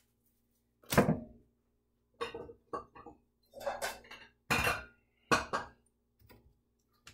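Kitchen handling noises: a grinder set down and a glass bowl taken from a cupboard and put on the countertop. About seven separate short knocks and clinks, the loudest about a second in.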